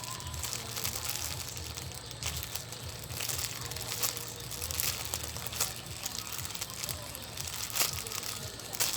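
Plastic wrapping crinkling and rustling as squishy toys are handled, with small sharp clicks scattered throughout.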